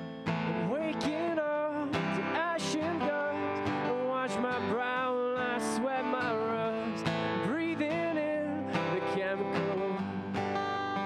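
Live acoustic guitar strummed by a male singer-songwriter singing into a microphone. The voice drops out near the end, leaving the guitar playing on.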